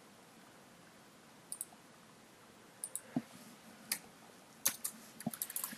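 Computer mouse and keyboard clicks: a few scattered clicks, then a quick run of key presses near the end.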